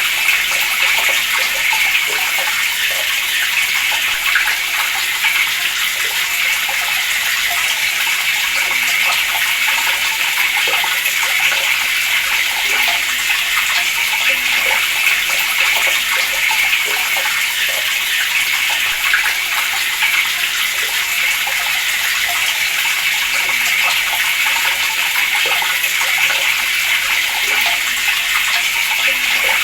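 Water running steadily from a tap, a continuous splashing hiss that stays even throughout.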